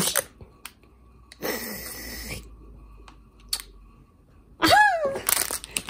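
Foil blind-box bag crinkling and rustling in the hands as it is torn open and a small vinyl figure is pulled out, with a few light clicks. Near the end, a short vocal exclamation that rises and falls in pitch.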